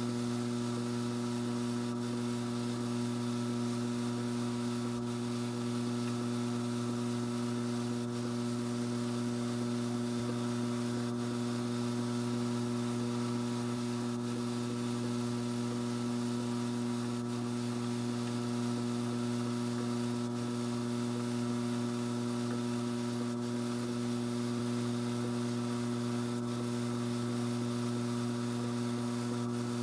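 Strauch Mad Batt'r XL electric drum carder running at slow speed: a steady motor hum, with a faint tick about every three seconds.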